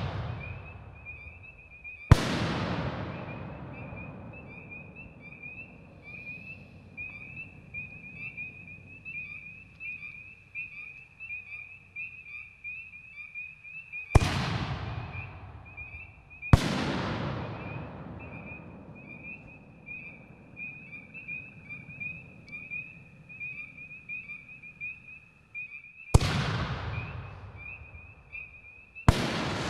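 Five-inch 60-gram canister shells fired from a reloadable mortar, three in turn. Each gives a sharp launch thump, then two to three seconds later the loud break of the shell in the sky, which fades off in a long rumble and crackle. A steady pulsing high chirping of night insects or frogs runs underneath.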